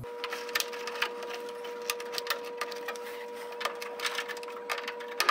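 Irregular light clicks and taps from hands working at the furnace wiring, over a steady hum.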